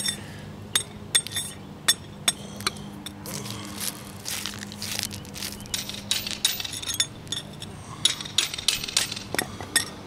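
Steel chisel blade picking and scraping in a concrete driveway crack, chipping out loose concrete: irregular sharp clinks, a stretch of scraping about four seconds in, and quicker strikes near the end.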